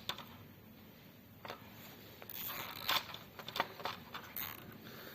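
Nylon cable tie being pulled tight around loose wiring: faint, scattered clicks and short rasps from the tie's ratchet.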